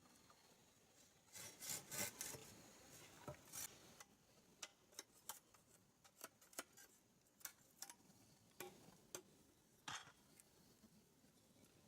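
Faint rubbing and scraping about a second and a half in, then a scattering of light, separate clicks and snaps.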